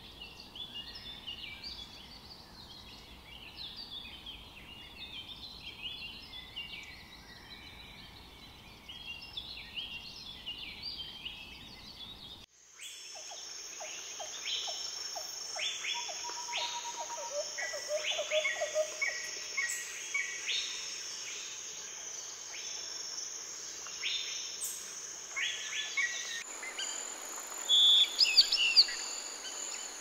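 Birds calling in a rainforest, many short overlapping chirps at first. About twelve seconds in, the sound changes suddenly to a steady high insect buzz with scattered bird calls, and near the end a few loud whistled chirps stand out.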